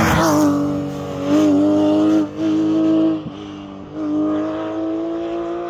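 Porsche 911 race car's flat-six engine passing close at full throttle, then pulling away up the hill. Its note climbs in pitch in each gear, broken twice by short gaps at the gear changes.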